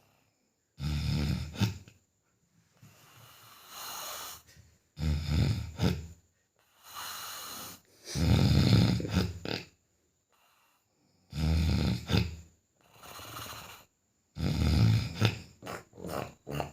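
Heavy snoring in a steady breathing rhythm: about five loud, deep snores, each followed by a softer, airier breath, recurring roughly every three seconds.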